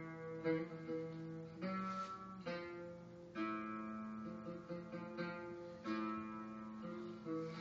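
Music: a plucked string instrument playing a slow melody in maqam Bayyati, each note struck sharply and left to ring into the next.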